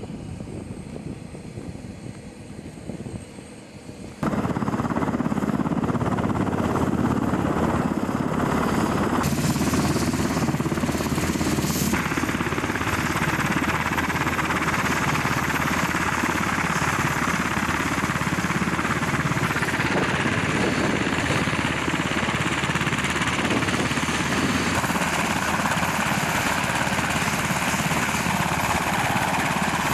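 UH-60 Black Hawk medevac helicopter running on the ground with its rotors turning, a steady rotor and turbine noise. It is fainter at first and jumps abruptly louder about four seconds in, then holds steady.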